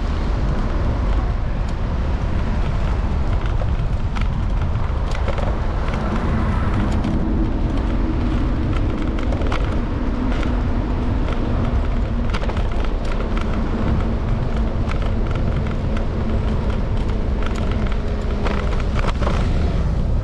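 Steady road rumble and wind on a camera mounted on the handlebars of an electric scooter as it rides along city streets. Frequent small clicks and rattles run through it, and a low hum rises under the noise in the middle.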